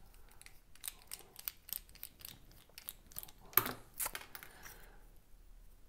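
Small clicks and taps of a disassembled carbon-fibre Mini Rat folding knife's parts and a screwdriver being handled on a workbench mat, with two sharper knocks about three and a half and four seconds in.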